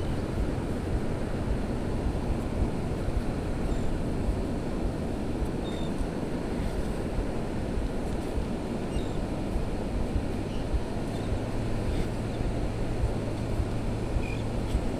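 Steady wind rushing over the microphone with surf behind it. A few faint, brief high tones come and go.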